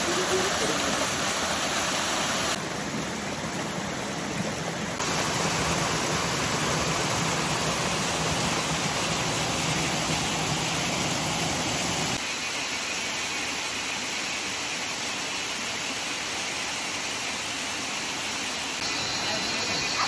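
Waterfall: a steady, loud rush of falling water that fills the whole range from low to high. Its loudness and tone change abruptly several times.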